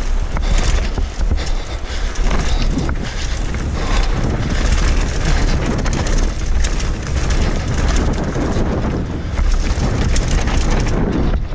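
Mountain bike descending fast over a rough dirt and stone trail: wind buffeting the camera microphone, tyres running over loose ground, and a constant clatter of small knocks and rattles from the bike over the bumps.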